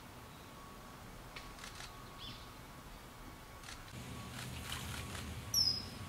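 Common kingfisher giving one short, shrill, high whistle near the end, the loudest sound, over a faint outdoor background with a few soft ticks and a faint chirp earlier on.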